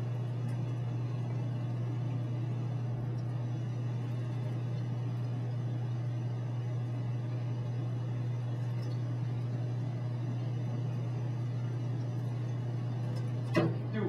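Steady low electrical hum with a faint hiss. A brief burst of voice comes near the end.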